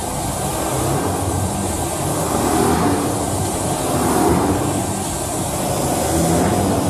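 Shark upright vacuum cleaner running on thick-pile carpet, getting louder and softer as it is pushed back and forth.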